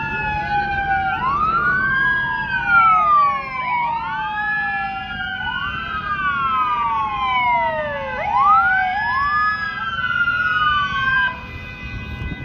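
Several police car sirens wailing at once, out of step with each other: each rises quickly in pitch and then falls slowly, over and over. They stop about a second before the end, leaving a low street rumble.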